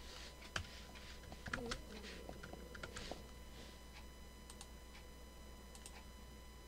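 Faint computer keyboard and mouse clicks: a quick run of light key taps over the first three seconds, then a few scattered clicks, over a faint steady electrical hum.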